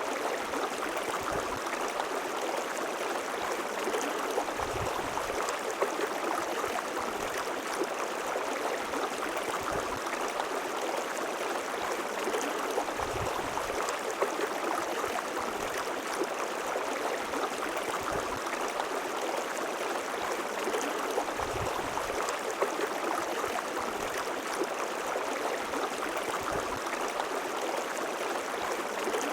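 River water flowing and rushing steadily over stones.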